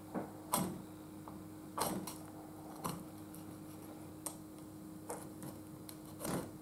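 Deba knife cutting into a blue cornetfish just behind the head: a handful of short, irregular crunches and taps as the blade works through the flesh and bone and meets the plastic cutting board, over a steady low hum.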